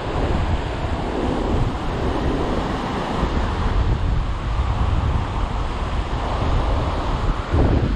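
Ocean surf washing on the beach, with wind buffeting the microphone in a steady low rumble.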